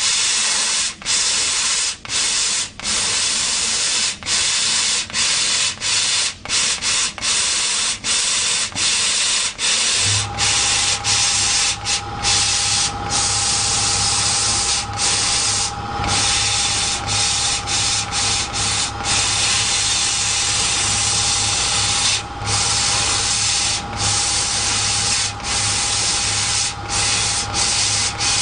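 CO2 laser cutter cutting 4 mm wood: a steady hiss of air at the cutting head, broken by brief gaps every second or so as the cut pauses and moves on. About ten seconds in, a low hum and a steady whine join in and keep running.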